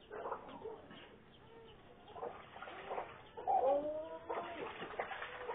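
Chickens clucking, with one louder drawn-out call a little past the middle.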